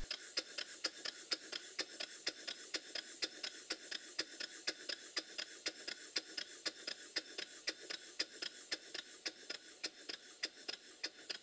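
Stuart Turner No. 1 model steam engine running on compressed air, apparently in reverse, with a steady train of even exhaust beats, about four a second. The evenness of the beats is the sign of freshly set valve timing with early admission.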